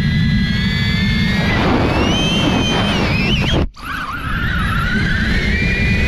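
Drone's propeller motors whining over a heavy rumble of wind on the microphone. About two-thirds through, the sound cuts out abruptly for a moment; then the motor whine returns and climbs steadily in pitch as the motors speed up.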